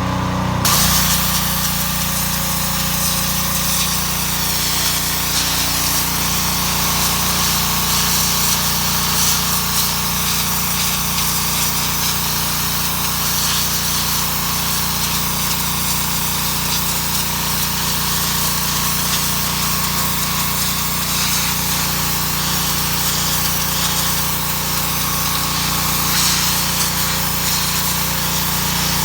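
Pressure washer: its engine running steadily, with the high-pressure water jet starting about a second in and blasting continuously onto brick as a loud, steady hiss, stripping moss and algae off it.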